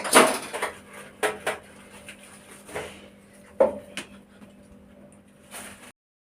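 Clatter of kitchen dishes and utensils as rice is tipped into a strainer to drain, as a handful of separate knocks and clinks.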